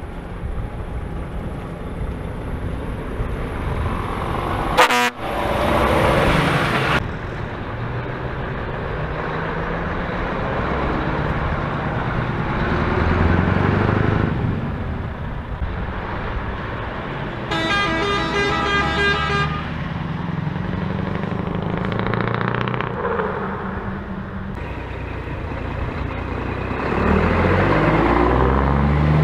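Diesel engines of DAF and Scania tractor units pulling away and passing one after another. A truck air horn sounds for about two seconds past the middle of the stretch, and an engine revs up near the end.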